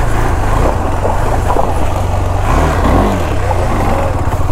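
KTM 390 Adventure's single-cylinder engine running steadily under throttle, its pitch dipping and picking up again about three seconds in.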